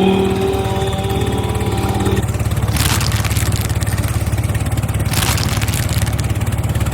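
A vehicle engine running steadily with a fast, even pulse. A steady pitched tone sounds over it for about the first two seconds, and short hisses come about three and five seconds in.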